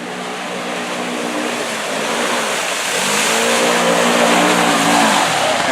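Side-by-side UTV engine revving while driving through a river: the engine note climbs about two and a half seconds in and drops back near the end. A rushing hiss of water and spray grows louder under it.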